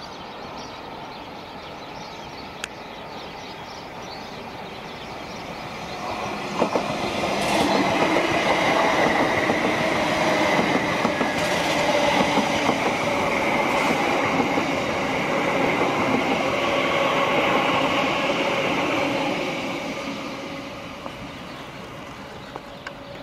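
Class 345 (Bombardier Aventra) electric multiple unit running past close by, a steady whine over the rumble of its wheels. The sound builds over a few seconds, stays loud for about ten seconds, then fades away near the end.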